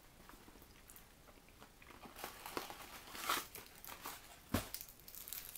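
Lindt chocolate wrapper crinkling as it is handled and opened, starting about two seconds in, irregular and faint, with a sharp click near the end.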